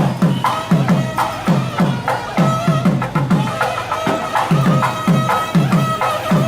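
Live procession music: drums beaten in a fast, repeating rhythm, each low stroke dropping in pitch, with a reed wind instrument holding high notes over them.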